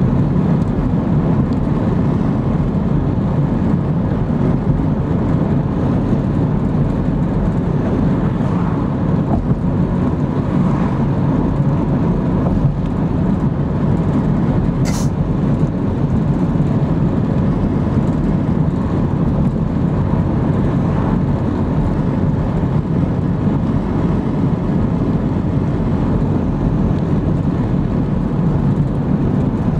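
Steady road and engine noise of a car driving along a paved road, heard from inside the cabin, with one short click about halfway through.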